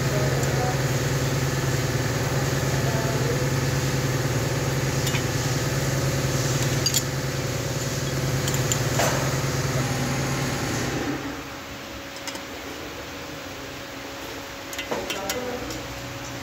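Steady mechanical hum of a running motor, which cuts out about eleven seconds in, leaving a fainter steady hum, with a few sharp clicks scattered through.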